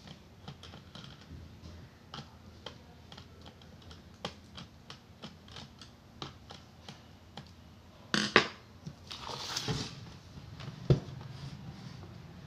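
Light, irregular clicks and taps of a small screwdriver working at the plastic base of a Dell Inspiron laptop. About eight seconds in there is a louder clatter and a short scrape, then a knock near the end as the laptop is turned over and set down.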